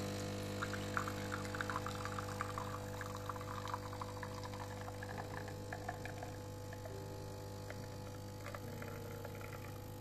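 Espresso machine pump humming steadily while espresso streams into a glass, with quick dripping and splattering for the first few seconds that thins out as the streams join into one. The shot runs a little fast, a sign that the grind is not fine enough for espresso.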